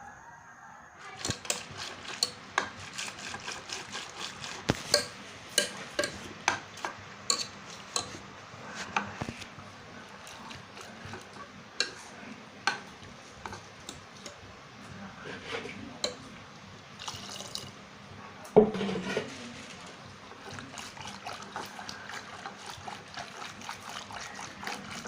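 Irregular clinks and knocks of a pressure cooker pot and kitchen utensils, with a little water being poured in and sloshing around the pumpkin and tomato pieces.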